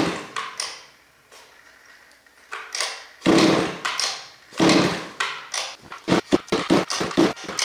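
Pull-starting a Zenoah 32cc two-stroke RC truck engine with its recoil starter: a few hard pulls, each a brief whirring crank that dies away, then a fast run of about eight short pulls, sped up. The engine cranks without firing.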